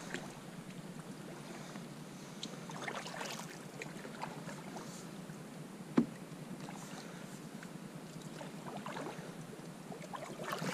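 Kayak paddles dipping and splashing in calm creek water in an uneven rhythm, with a single sharp knock about six seconds in.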